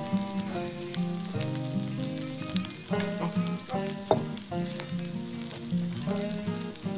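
Diced onion and ham sizzling on a hot electric griddle plate, a steady hiss dotted with many small crackling pops as the food fries. Background music plays along with it.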